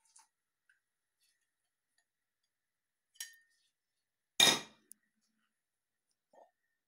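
Glass pint canning jar set down on the counter with a clink and a brief ring about three seconds in, then a louder knock about a second later as the jar and peppers are handled.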